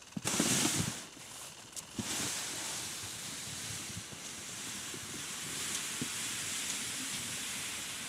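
Wind buffeting the microphone: a loud rush of noise in the first second, then a steady hiss with a few faint clicks.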